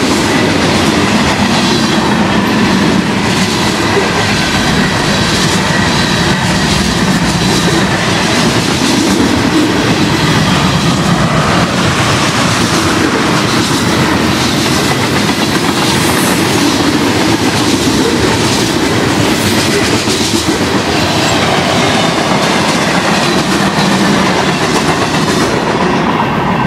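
Freight cars (covered hoppers and tank cars) rolling past at close range: steady rumble of steel wheels with a clickety-clack over the rail joints. A faint high ringing tone sits over it in the first few seconds.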